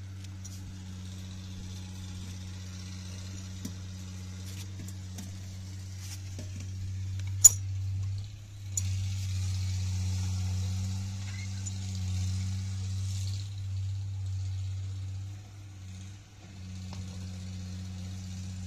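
Metal parts of a Caterpillar 424B hydraulic piston pump clinking as the cylinder block is handled and seated in the pump housing: a few light clicks and one sharp clink about seven and a half seconds in, over a steady low hum and a hiss that comes and goes.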